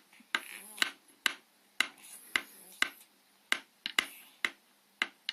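A wooden bee toy clacking as a child's hand knocks on it repeatedly, about a dozen sharp wooden knocks at an uneven pace of roughly two a second.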